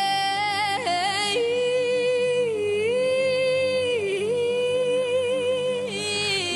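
A woman singing solo over steady backing music: after a short high phrase she holds one long note with vibrato for several seconds, dipping in pitch twice, then moves up into a new phrase near the end.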